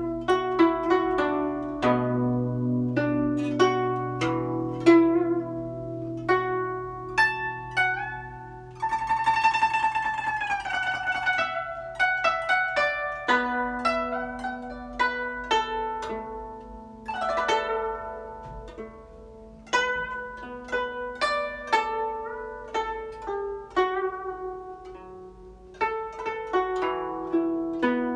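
Guzheng playing a melody in separate plucked notes, with low bass notes ringing underneath. About nine seconds in comes a fast, dense run of notes whose pitch bends downward, and then single plucked notes resume.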